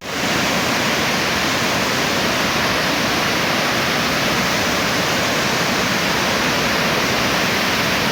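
Waterfall rushing: a loud, steady noise of falling water, even from low to high pitches, with no change through the stretch.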